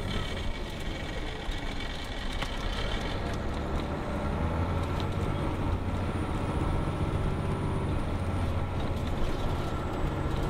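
Detroit Diesel Series 60 inline-six diesel engine of an MCI D4500 coach running with a steady low drone, heard from inside the passenger cabin.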